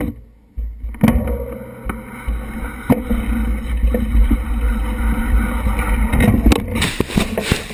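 Wind buffeting the microphone of a bike-mounted action camera as a mountain bike rides over a rough dirt trail: a steady low rumble with sharp knocks and rattles from the bike jolting over bumps, several close together near the end.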